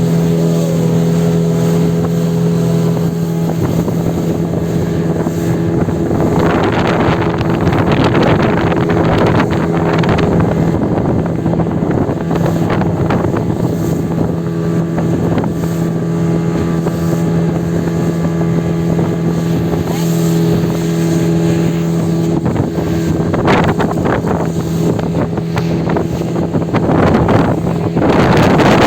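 Motorboat engine running with a steady drone, with bursts of rushing noise and wind on the microphone.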